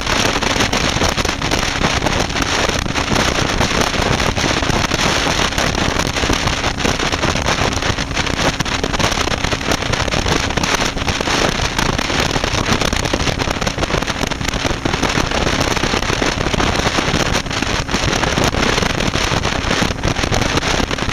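Wind buffeting the microphone of a camera on a motorcycle moving at road speed: a loud, steady rush with many short crackles, and the bike's engine and road noise running steadily underneath.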